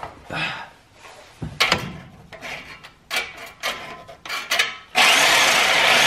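Knocks and scrapes as a corded DeWalt reciprocating saw is picked up and set against a car's exhaust pipe. About five seconds in, the saw starts suddenly and runs loud and steady on the pipe to cut it off.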